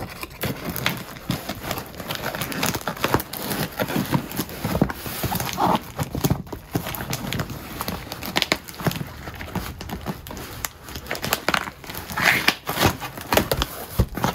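Packing tape being slit with a small plastic safety cutter and pulled off a cardboard box, then the box flaps opened. Irregular scratching, tearing and crinkling of tape and plastic wrap, with knocks of cardboard being handled.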